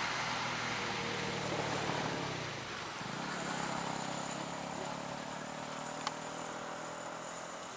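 Diesel locomotive engine drone whose pitch slides down over the first two seconds or so, then settles into a steady hum that slowly fades. A single sharp click comes about six seconds in.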